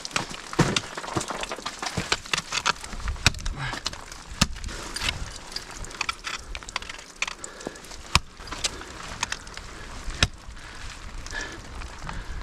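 Irregular sharp knocks and clinks of ice-climbing gear on ice and snow, with metal gear jangling between them.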